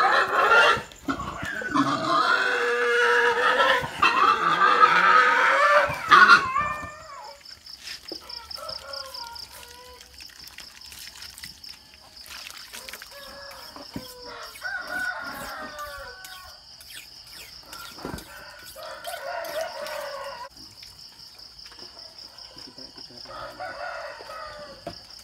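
A pig squealing loudly for about the first six seconds, then roosters crowing at intervals. From about seven seconds in there is also a steady, high-pitched pulsing trill.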